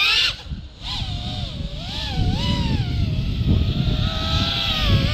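Brushless motors and propellers of a 5-inch FPV racing quad (HGLRC Aeolus 2207.5 1900KV motors) whining in flight, the pitch rising and falling with the throttle. The whine drops away briefly just under half a second in, comes back wavering, and climbs sharply near the end, over a low rushing noise.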